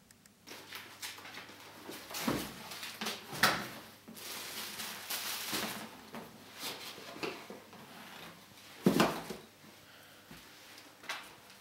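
Papers and desk objects being handled and dropped into a cardboard box: irregular rustling and scraping, with a few sharp knocks, the loudest about two, three and a half, and nine seconds in.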